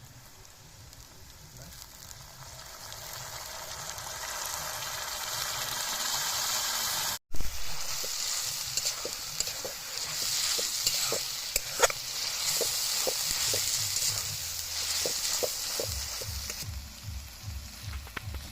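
Chicken paya masala frying in a pan. The sizzle builds steadily over the first seven seconds. After a break it comes back louder, with a run of short knocks from stirring over several seconds.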